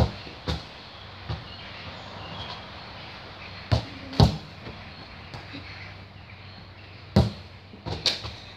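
A football being kicked and landing on grass: a series of short, dull thuds, about seven in all, the loudest at the start, about four seconds in and about seven seconds in.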